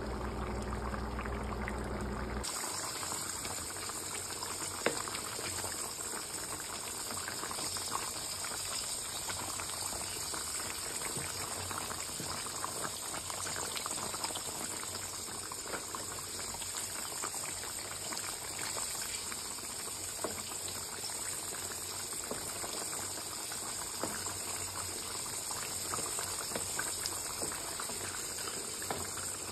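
Beef rendang curry simmering in a wok, bubbling with many small pops over a steady hiss. A low hum in the first two seconds or so stops abruptly.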